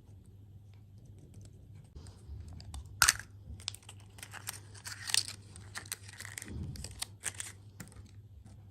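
Close-miked crinkling and crunching of a dessert and its wrapping being handled and eaten: a run of sharp crackles, the loudest about three seconds in, over a steady low hum.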